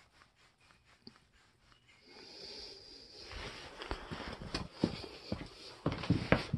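Handling noise: a soft hiss comes in about two seconds in, then a run of irregular knocks and thumps, getting louder near the end.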